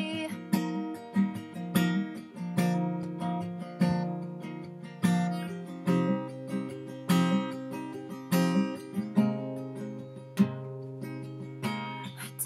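Acoustic guitar strumming chords in a steady rhythm, about one to two strokes a second.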